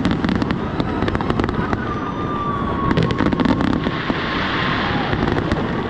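Fireworks going off in rapid clusters of sharp cracks and pops, one volley at the start and another about three seconds in, over a loud continuous background din.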